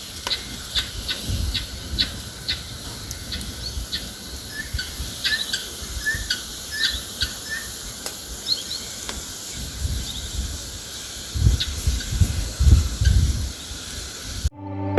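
Small birds chirping in quick, irregular short calls over outdoor background hiss, with wind gusting on the microphone late on.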